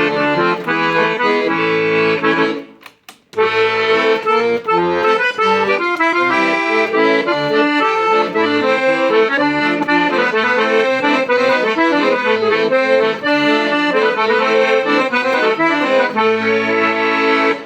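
Klingenthal Contasi accordion being played: a melody over low bass notes and chords. There is a brief pause about three seconds in, then a quicker run of notes until the playing stops at the end.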